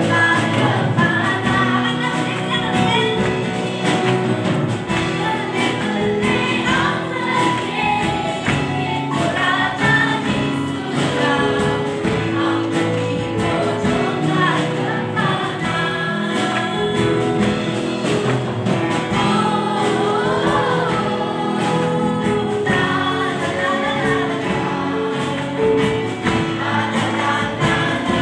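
Church worship band and congregation singing a gospel hymn together, accompanied by keyboard and electric bass guitar.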